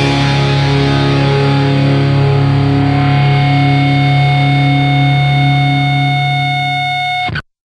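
Rock music with a distorted electric guitar: a chord is held and rings out, then cuts off suddenly near the end.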